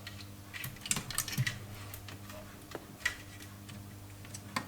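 Scattered light clicks and taps of hands handling small computer parts during the disassembly of a PC, over a steady low hum.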